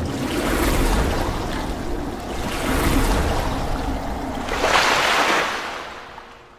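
Intro sound effect: rushing noise that swells three times like breaking surf, over a low rumble, then fades out near the end.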